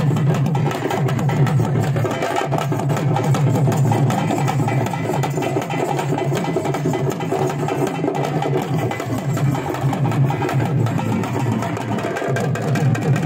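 Thappattam drumming: parai (thappu) frame drums beaten with sticks in a dense, steady rhythm, with a large barrel drum played through a microphone.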